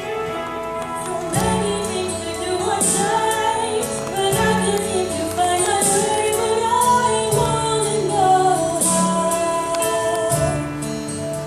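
Female soloist singing a slow melody into a handheld microphone, over sustained low chords that change about every three seconds.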